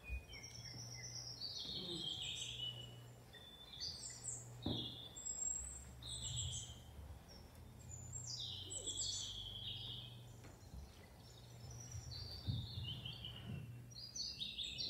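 Birdsong: repeated high chirps and trills sliding downward in pitch, over a low steady hum.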